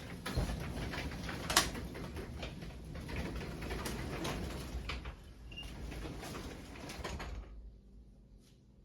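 Wooden garage door being closed by hand, its steel rollers rattling and rumbling along the metal tracks, with a sharp clack about a second and a half in. The noise stops about seven seconds in as the door comes down.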